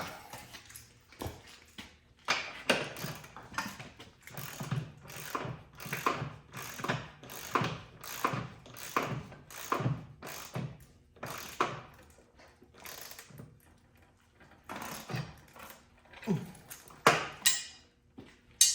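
Hand ratchet wrench being worked in repeated strokes, each one a short burst of ratcheting clicks, with a pause and then a few more strokes near the end.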